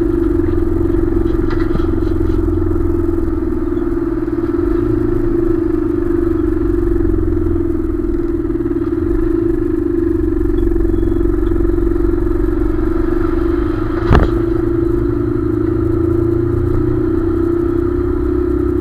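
Container truck's diesel engine and drivetrain droning steadily at highway cruising speed, with road rumble from the tyres and skeletal trailer. One sharp knock about fourteen seconds in.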